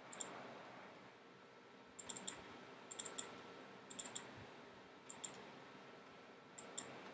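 Faint computer mouse clicks, in quick pairs and small clusters about once a second, over a low steady hiss.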